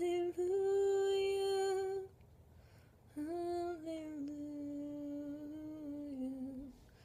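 A woman's voice singing unaccompanied, a wordless melody: one long held note for about two seconds, a short pause, then a longer phrase that steps down slowly in pitch.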